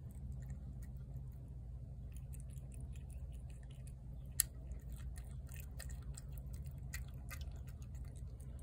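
A cat chewing wet cat food off a plate, a run of small irregular mouth clicks, with one sharper click about halfway through. A steady low hum lies underneath.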